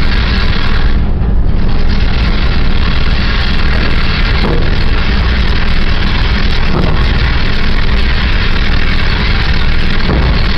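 Steady, loud drone of ship's machinery on the mooring deck during berthing, with a few faint knocks.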